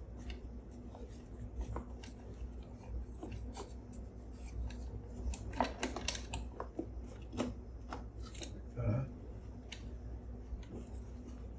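Brass and wood camera parts handled and pressed together: the brass bellows frame worked into the wooden front standard, with small irregular clicks and rubbing. A low steady hum runs under it.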